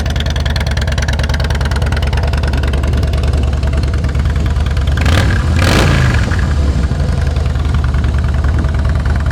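2011 Harley-Davidson Softail Deluxe's 96-cubic-inch V-twin idling through aftermarket Vance & Hines exhaust, with one quick blip of the throttle a little past halfway.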